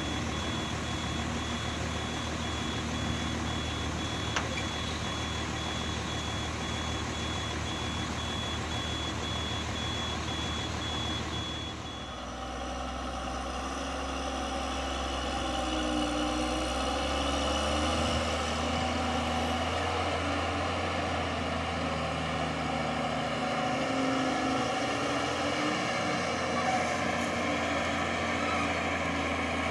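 Dump truck's reversing alarm beeping steadily at one high pitch over its diesel engine. About twelve seconds in, the beeping stops and a diesel tipper truck's engine works and revs as the truck climbs over a dirt bank.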